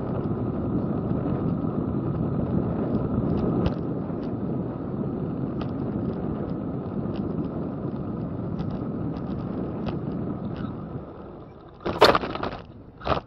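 Steady road and tyre noise of a car driving on a wet road, heard from a dash cam inside the car, with scattered faint ticks. Near the end the noise drops away and a sharp loud knock follows, then a second one just after: a low-speed collision with the car ahead.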